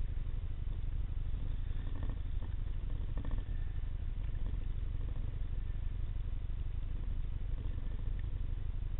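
Underwater ambience picked up through a camera's waterproof housing: a steady low rumble with faint clicks and crackle.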